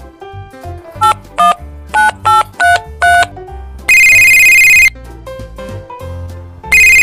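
Electronic phone sound effect over background music: a string of short two-note beeps, then a loud telephone ring lasting about a second, and a second ring starting near the end.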